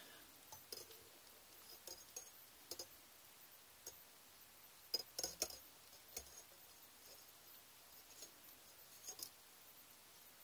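Near silence with faint, scattered small clicks and ticks of fine jewellery wire being coiled and handled by hand, including a short cluster of clicks about five seconds in.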